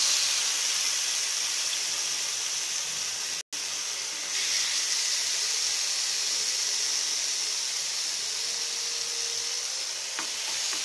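Marinated chicken pieces sizzling steadily on a hot, oiled grill pan as they are laid in and pressed down. The sizzle cuts out for a moment about a third of the way through.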